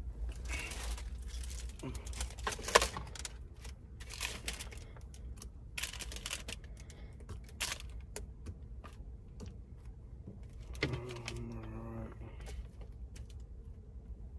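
Scattered clicks, taps and rustles of small objects being handled, over a steady low hum, with a brief murmur of a voice about eleven seconds in.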